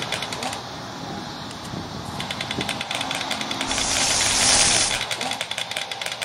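A small motor running with a fast, even rattle; a short burst of hiss about four seconds in.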